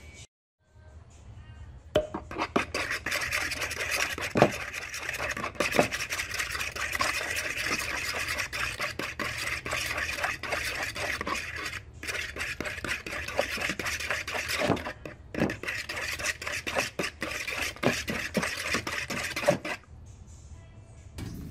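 A fork beating eggs in a bowl: quick clicking and scraping of the tines against the bowl's side. It starts about two seconds in, pauses briefly twice and stops shortly before the end.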